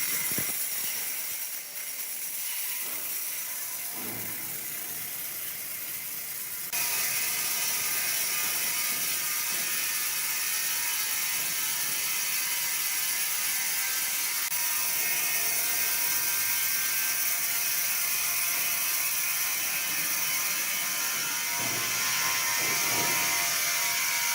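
Wood-processing machinery running steadily with a mechanical whir and rattle, getting louder about seven seconds in.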